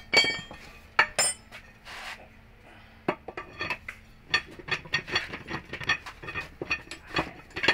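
Sharp metallic clinks and knocks of steel tools and parts against a disassembled Foton truck differential carrier as an axle shaft is fitted and the gears are handled, each with a short ring. They come singly at first, then thick and fast from about three seconds in.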